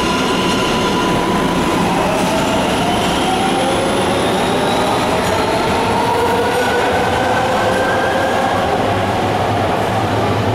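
MARTA heavy-rail subway train running along an underground station platform and picking up speed, with a steady rumble of wheels on rail and a whine that rises in pitch as it accelerates away.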